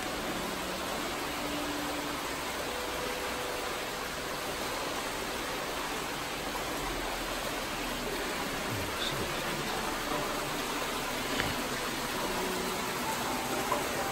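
Hot-spring water pouring steadily from a rock spout into an onsen bath, a continuous rushing splash.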